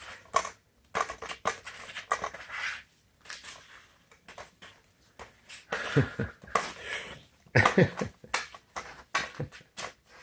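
Airedale terrier puppies tussling with a stick on a porch: irregular scraping, knocking and scrabbling, with two louder flurries about six and eight seconds in.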